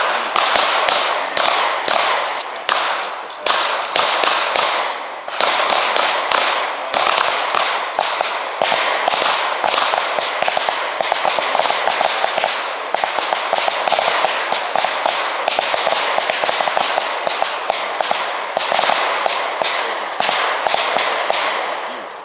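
Several handguns firing at once on a firing line: dozens of sharp, overlapping shots in a rapid, unbroken string, thinning out near the end.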